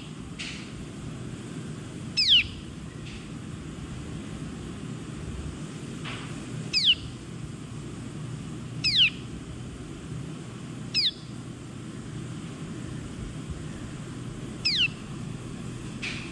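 A bird calling: five short, high whistles that fall sharply in pitch, repeated every two to four seconds, over a steady low background rumble.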